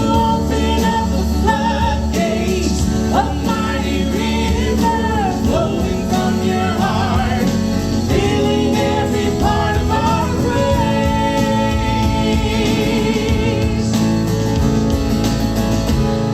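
Church worship band playing, with voices singing a wavering melody over a full, steady band accompaniment.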